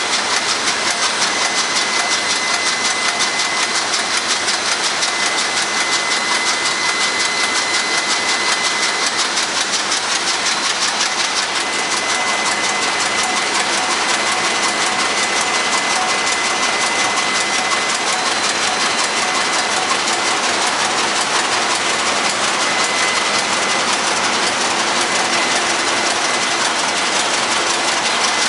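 Engine-room din from a running MAN B&W 6S50MC-C six-cylinder two-stroke marine diesel main engine: a loud, steady mechanical clatter with rapid, even ticking and a faint steady high whine.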